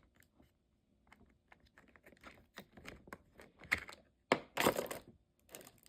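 Clicking and clattering of a mini chainsaw's bar, chain and small parts being handled and fitted by hand during assembly. A string of light clicks grows busier, with several sharper knocks in the second half.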